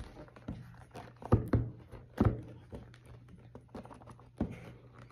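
Cardboard iPad box being handled and knocked to work the tablet out: a series of dull thunks and light taps, the loudest a little over a second in, again past two seconds, and once more near the end.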